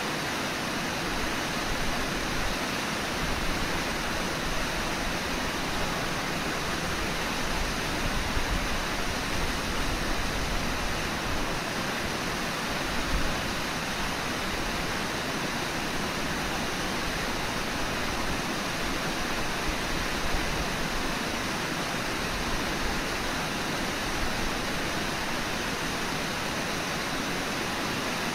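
Steady rush of river water pouring over Brooks Falls, an even, unbroken noise.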